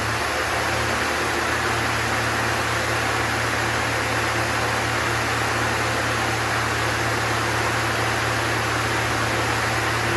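Spindle of a 1999 Haas SL-40T CNC turning center running at high speed, 2,000 RPM or more, with a steady whir over a low hum.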